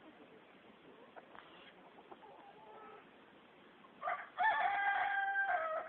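Golden Sebright bantam rooster crowing once: a short opening note about four seconds in, then one long held call that ends just before the close, after a few faint clucks.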